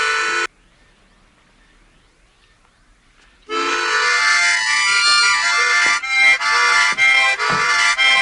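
Loud music with a reedy, accordion-like tone. It cuts off about half a second in, leaving a faint, quiet stretch of about three seconds, then comes back with sliding pitches and choppy breaks toward the end.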